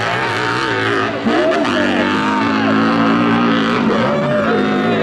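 Hill-climb dirt bike engine revving hard under full throttle up a steep loose slope. Its pitch rises and falls over and over, with a brief drop about a second in.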